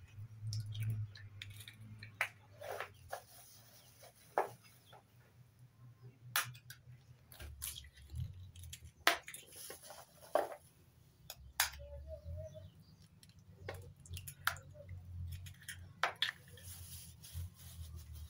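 A metal spoon tapping eggshells to crack them open, in sharp single clicks a second or two apart, with the shells pulled apart and the eggs dropped into a bowl.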